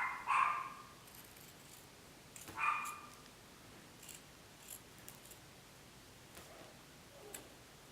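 Great Dane puppy giving two short high-pitched yelps about two and a half seconds apart, followed by a few faint clicks.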